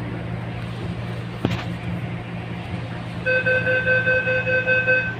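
Taipei Metro Wenhu line rubber-tyred train running with a steady low hum as it pulls into a station, with a single click about one and a half seconds in. From about three seconds in, a rapid electronic beeping pulses for nearly two seconds and is the loudest sound.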